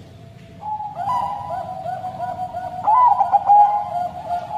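Bangkok-strain zebra dove (perkutut) singing its long cooing song: a held note from about half a second in, then a quick run of repeated soft coos, with a louder, higher phrase near three seconds.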